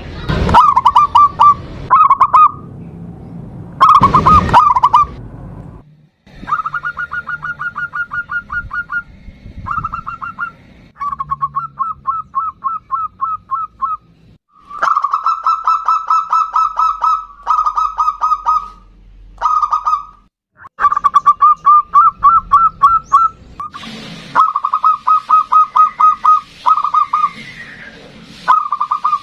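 Zebra dove (perkutut) cooing in runs of rapid staccato notes, each run lasting from about a second to a few seconds, with short breaks between.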